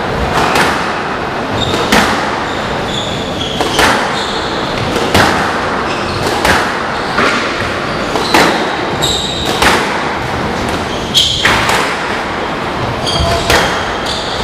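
Squash rally: the ball cracking off rackets and the court walls about every second, with short high squeaks of shoes on the wooden court floor between the hits.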